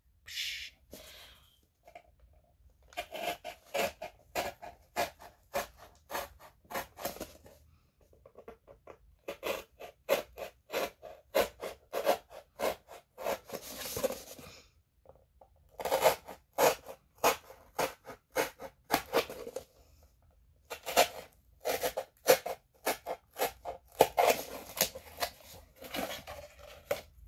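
Sharp knife sawing through corrugated cardboard: runs of short, scratchy cutting strokes at about three a second, broken by brief pauses.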